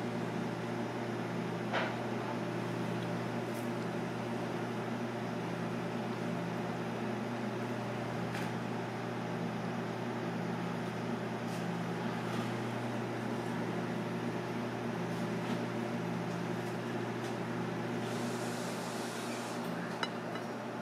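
A steady mechanical hum, like a fan or air-conditioning unit, with a few light clicks.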